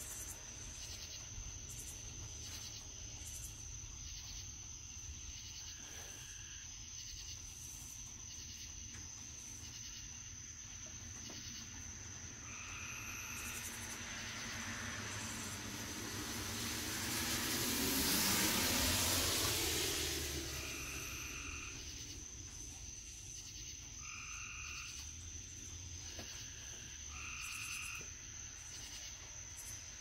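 Night chorus of frogs calling in short repeated notes over a steady high-pitched insect trill. A car drives past, growing louder to a peak about two-thirds of the way through and then fading away.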